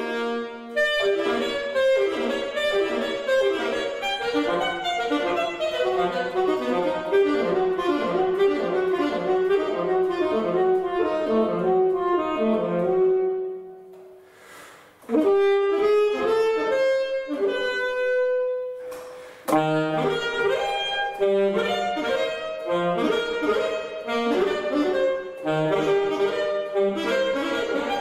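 Unaccompanied alto saxophone playing classical solo repertoire: quick runs of notes, then a brief pause about halfway through, a few longer held notes, and the quick passages again.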